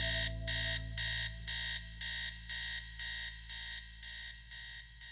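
Alarm-clock beeping, about two beeps a second, growing fainter, over a low held note that dies away as the song ends.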